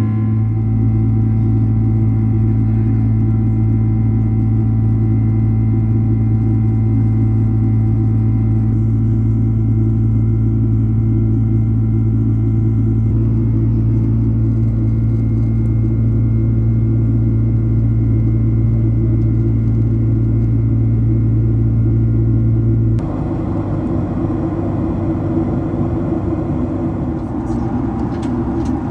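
Boeing 767-200 cabin during the climb: the jet engines' steady low drone with steady whining tones over it. About 23 s in the sound changes abruptly to a slightly quieter, rougher rushing noise with less of the hum.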